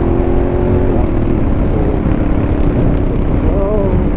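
Honda Africa Twin's parallel-twin engine running under way through a Fuel aftermarket exhaust, with wind rush. The engine note changes about a second in and wavers in pitch near the end.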